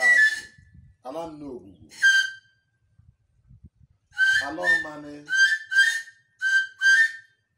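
A high-pitched whistle blown in short notes: one at the start, one about two seconds in, then a quick run of about six near the end, alternating with a man's wavering chant.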